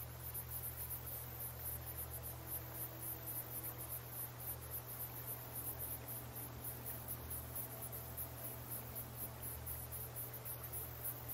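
Crickets chirping in a steady, evenly pulsed trill, faint, over a low steady hum.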